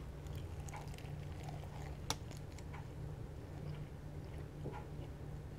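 A person chewing a bite of breaded fried chicken drumstick: soft, scattered crackles of the crust, with one sharper crunch about two seconds in.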